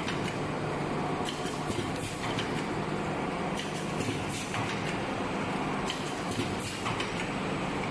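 Paper-plastic blister packaging machine running, a steady hum of motors with light clicks and knocks from its mechanism every second or so.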